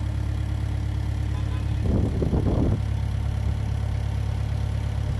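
Forklift engine idling steadily while it holds a sump pump up, with a brief louder, rougher surge about two seconds in.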